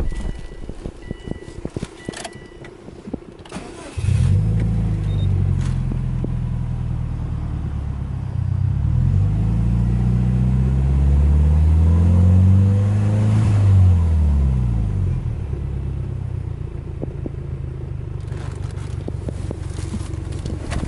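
Subaru Impreza WRX STI's turbocharged flat-four boxer engine starting suddenly about four seconds in, after a few short electronic dashboard chimes. It runs at a fast idle near 2,000 rpm, the revs rising and falling once, then settles to a steady idle.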